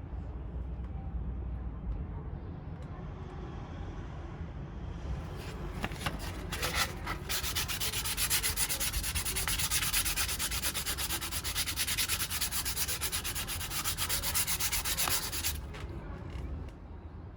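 Sandpaper rubbed in rapid back-and-forth strokes on a wooden axe handle, a dry scratchy scraping that starts about five seconds in and stops about two seconds before the end: the handle is being sanded smooth ahead of varnishing.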